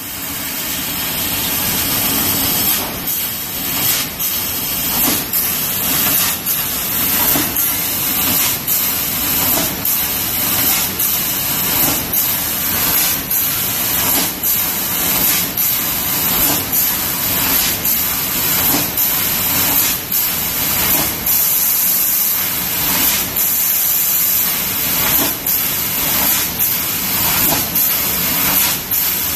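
Trumpf laser cutting machine cutting 2 mm aluminium sheet: a loud, steady jet-like hiss from the cutting head, broken by short dips and clicks about once a second as one cut follows another.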